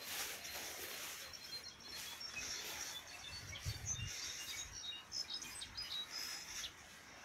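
Small songbirds chirping with many short, high notes, with a soft low thump about four seconds in.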